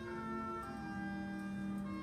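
School concert band playing a soft, sustained passage: held wind chords that move to a new chord about two-thirds of a second in.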